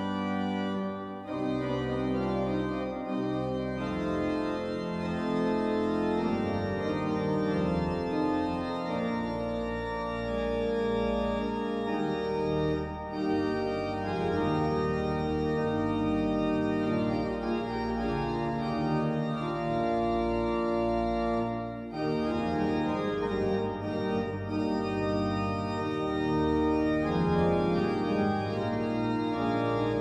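Pipe organ playing full, sustained chords, with short breaks between phrases about a second in, near the middle and about two-thirds through.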